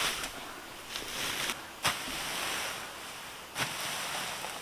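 Hay fork working through cut grass: a dry rustling swish every second or two as the grass is lifted and tossed, a few strokes opening with a light knock.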